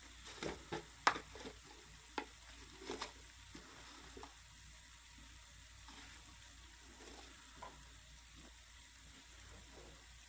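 Garlic and onion frying gently in oil in a steel pot, a faint steady sizzle, with a few light clicks and knocks in the first three seconds as spice is added.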